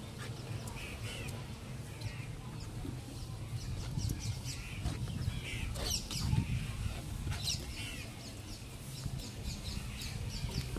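Bird calls, short chirps every few seconds, over the close clicks and smacks of people chewing and eating with their hands.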